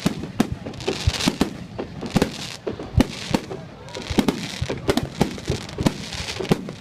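Fireworks going off: a dense, irregular series of sharp bangs over a continuous crackling hiss.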